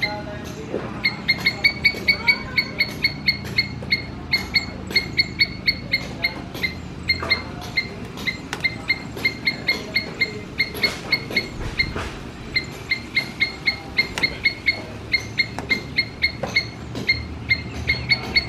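Squirrel giving a repeated alarm call, short sharp barks of the same high pitch about four a second. The calls come in long runs with a couple of brief pauses.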